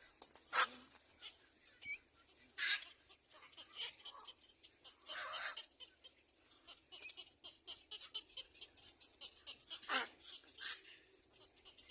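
A baby bird screaming in short, harsh calls: about five separate screams, the loudest at the start and about ten seconds in, with faint rapid ticking between them.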